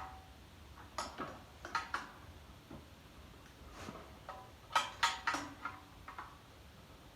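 A steel combination wrench clinks against a starter mounting bolt and the surrounding engine metal as it is fitted and turned. The metallic clicks come irregularly, in small groups about a second in, around two seconds, and around four to five seconds in.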